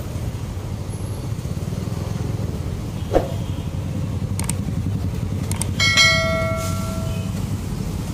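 Motorcycle engine running steadily with road and traffic noise while riding. About six seconds in there is a short, bright metallic ring lasting about a second, and a brief falling chirp comes earlier.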